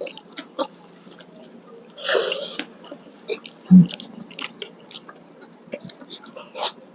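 Close-miked eating: wet chewing and mouth clicks from eating curry and rice with raw vegetables. A louder noisy burst comes about two seconds in, and a low thump near four seconds.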